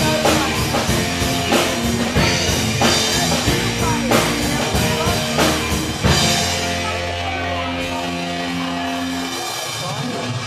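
Rock band with drums and electric guitar playing. About six seconds in, a final hit lands and a chord is held and rings out, closing the song.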